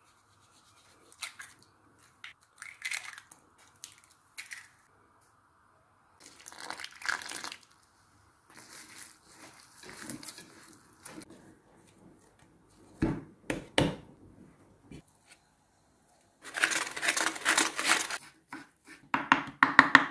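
Kitchen food-prep sounds in short separate bursts of rubbing, scraping and knocking, with quiet gaps between them. Near the end, a knife chops fresh mint leaves on a wooden cutting board in rapid strokes.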